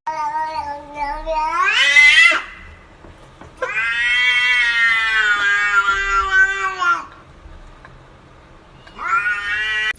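A domestic cat yowling in three long, drawn-out calls. The first rises in pitch before breaking off. The middle one is the longest and is held for about three seconds. The last begins near the end.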